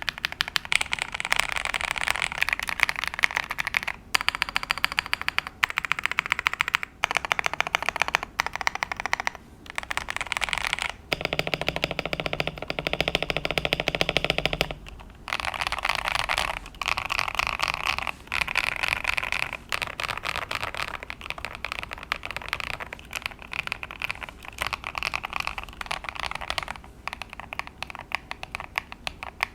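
Mechanical keyboard with Epomaker Dawn Pink switches being typed on quickly: a dense, continuous patter of keystrokes, broken by brief pauses every few seconds.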